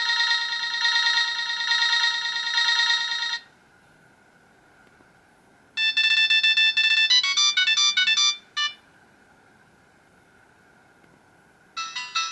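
Samsung SCH-A610 ringtone melodies played by an Alcatel 2053D feature phone's MIDI synthesizer. A tune of several notes at once plays for about three seconds and stops. After a two-second pause a second tune of quick notes plays for about three seconds and cuts off, and a third starts near the end.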